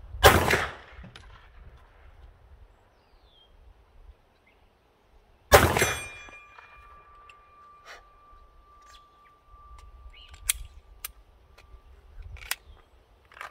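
Two shots from a Polymer80 Glock 19-pattern 9mm pistol, about five seconds apart, each trailing off in a short echo. A few light clicks follow near the end.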